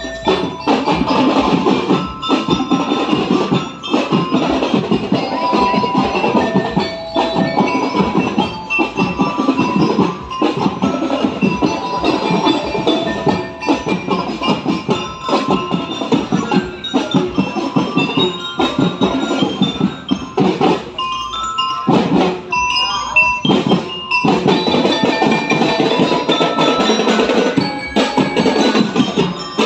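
Marching drum-and-lyre band playing a tune: bell lyres ring out the melody in short bright notes over a steady drum beat.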